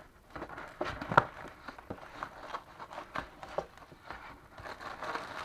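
A cardboard frozen-pizza box being opened by hand: irregular scrapes and clicks as the end flap is pried up and pulled open, with the sharpest snap about a second in.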